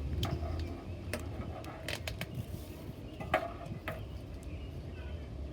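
Plastic pop tube fidget toys being stretched and handled, giving a string of sharp irregular clicks and pops over a low rumble.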